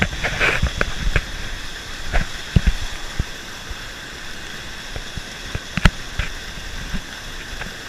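Mountain stream water rushing steadily over rocky cascades into a pool. A few sharp knocks cut through it, the loudest about six seconds in.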